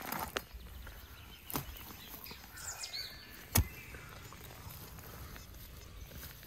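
A spade digging into forest soil: a few sharp knocks and scrapes, the loudest about three and a half seconds in. Birds chirp in the background.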